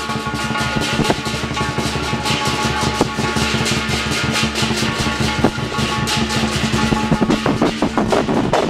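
Lion dance percussion: a drum beaten rapidly with crashing cymbals, the strikes dense and continuous.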